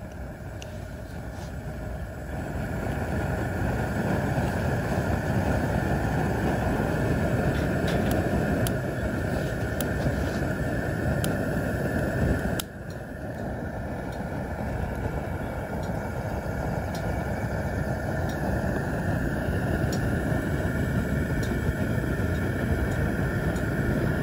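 Gas burner flame running under a charcoal chimney starter to light the charcoal: a steady rushing noise that builds over the first few seconds, dips sharply about halfway through, then builds back.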